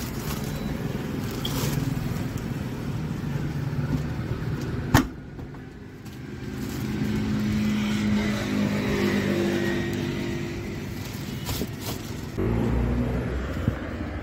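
A motor vehicle's engine running nearby, its note clearest in the middle of the stretch, with a steady low rumble throughout. One sharp click about five seconds in.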